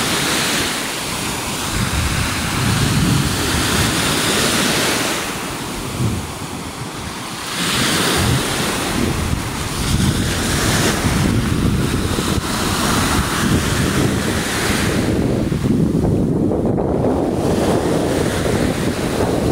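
Lake waves washing in and breaking, a steady rushing that swells and eases, with wind buffeting the microphone as a low rumble.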